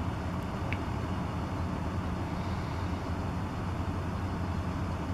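Steady low rumble of distant road traffic, with a brief faint high chirp under a second in.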